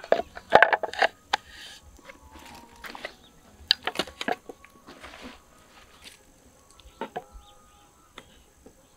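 Knocks and clatter of camp cooking gear being set down on rock. A wooden cutting board goes down with a burst of sharp knocks about a second in. Around four seconds in, a cook pot in a mesh bag is set on the board with more knocks, and lighter taps follow near seven seconds.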